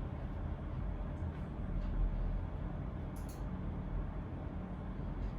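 Steady low background rumble of a room while people work quietly, with a short cluster of light clicks about three seconds in.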